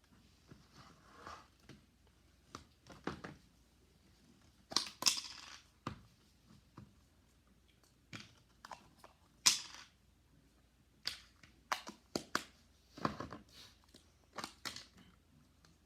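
Play-Doh and plastic modeling tools handled on a tabletop: irregular clicks, knocks and short crinkly rustles as dough is pulled apart and pressed.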